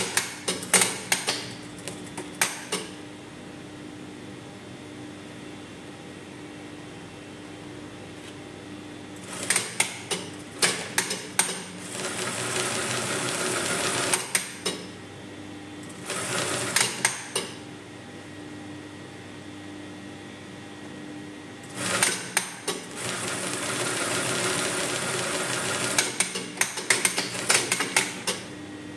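Brother industrial single-needle sewing machine stitching in several short bursts and two longer runs of a few seconds, with clusters of sharp clicks as each run starts and stops. A steady hum fills the pauses between runs.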